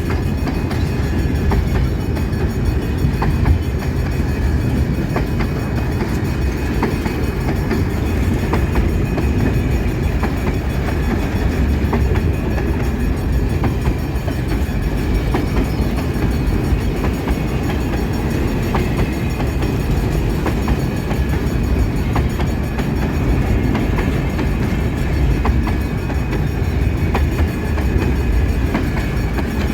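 Empty freight wagons of a long train rolling past: a steady low rumble of wheels on rails, with irregular sharp clicks as wheels cross rail joints.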